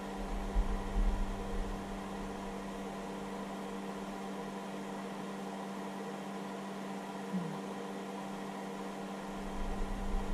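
Steady whirring hum of a hobby battery charger's cooling fan, with a constant low tone, as the charger runs a discharge of about 5 A from an 18 V lithium battery. There is some low rumbling near the start and again near the end.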